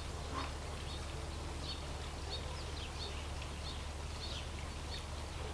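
Faint, short high chirps of small birds, repeated many times over a steady low hum.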